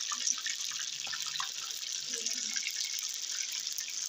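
Chunks of mutton frying in a pan of hot oil, a steady sizzle with small crackles.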